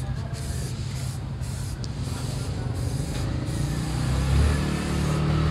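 Aerosol spray-paint can hissing in short bursts as the scooter's chassis is painted. A low engine hum grows louder in the last second or so.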